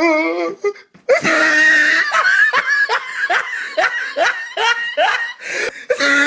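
Loud, hearty belly laughter in rapid ha-ha pulses, about two a second, starting about a second in.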